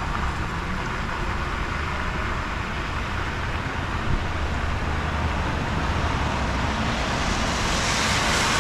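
Steady road rumble and hiss, with a car's tyres swishing through standing water on a flooded road, growing louder near the end as it approaches.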